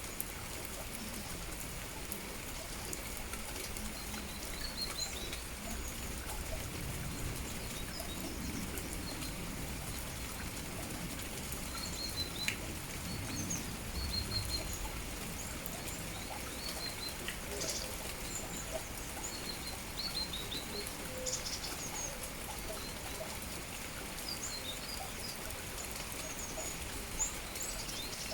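Steady rain with small birds chirping: short, high chirps scattered throughout over the even hiss of the rain.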